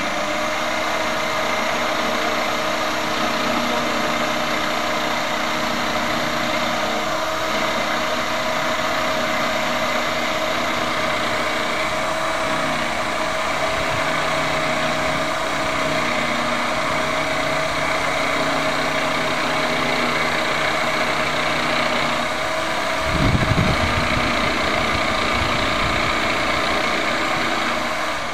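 Corded electric jigsaw running steadily while cutting a curved line through a plywood sheet, with a brief low rumble near the end.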